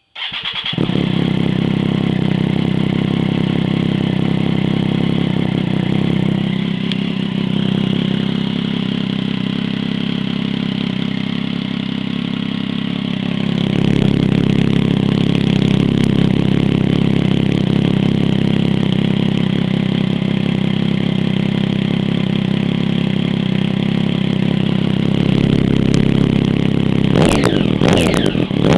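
Triumph Daytona 675's inline three-cylinder engine running at a steady idle through a Two Brothers M5 exhaust with no catalytic converter, EXUP valve or O2 sensor. The idle rises a little about halfway through, and near the end the throttle is blipped for a quick rev up and back down.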